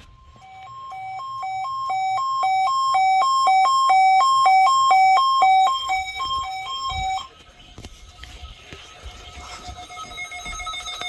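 Electronic alert tone alternating between a high and a low pitch, about three cycles a second, marking the start of an Emergency Alert System Required Weekly Test. It cuts off suddenly about seven seconds in, and fainter sustained tones follow.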